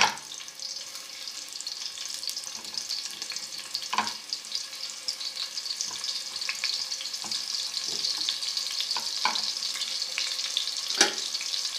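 Sliced onions frying in hot ghee in a pot: a steady sizzle, with a few short knocks as they are stirred. The onions have just gone in and are frying toward light brown.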